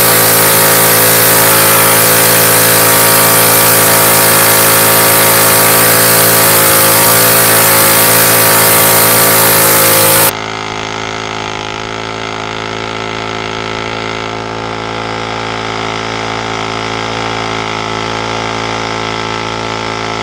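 Predator 212 single-cylinder engine of a Coleman CT100U mini bike held at steady high revs during a burnout, the rear tire spinning on concrete. For about the first ten seconds the sound is much louder and harsher, with a hissing rush over the engine note; it then drops off sharply, leaving the engine running steadily.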